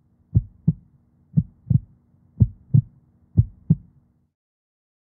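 Heartbeat sound effect: four double thumps, about one pair a second, over a faint low hum, stopping about four seconds in.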